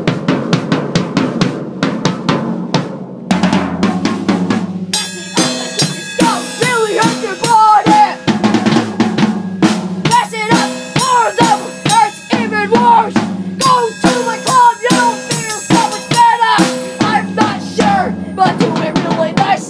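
A drum kit played freestyle: bass drum, snare and rimshot strokes in a busy beat. About five seconds in, a pitched part that slides up and down in pitch joins over the drums.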